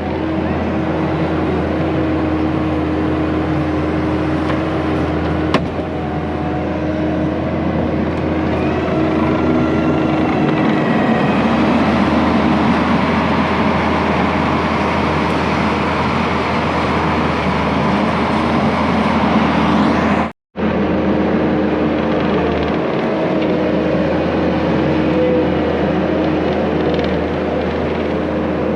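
Skid steer's diesel engine running steadily under load while working dirt with a 4-in-1 bucket. The sound drops out briefly about twenty seconds in, then resumes.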